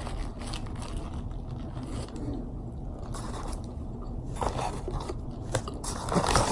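Someone chewing a fried chicken sandwich close to the microphone, with a few sharp crunching clicks in the last couple of seconds.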